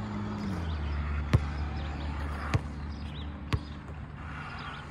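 Basketball bouncing on the outdoor court surface, three bounces about a second apart. Under them runs a steady low motor hum that drops slightly in pitch about half a second in.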